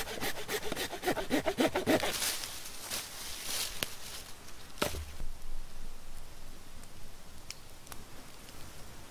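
Dry wood being sawn by hand in quick, even back-and-forth strokes, about four a second, stopping about two seconds in. Then a few light knocks and crackles of wood, with one dull thump near the middle.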